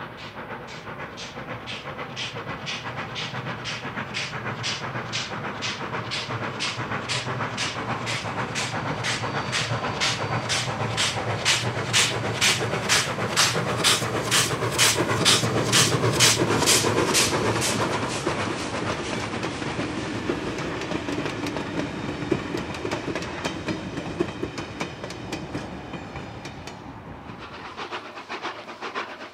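Steam locomotive 3265, a 4-6-0 passenger engine, working a train past, its exhaust beating about twice a second and growing louder as it approaches. The beats stop about two thirds of the way through, and the carriages roll by and fade away.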